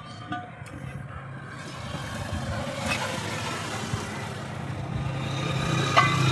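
A motor vehicle's engine running with a steady low hum and road noise, growing gradually louder; a sharp click near the end.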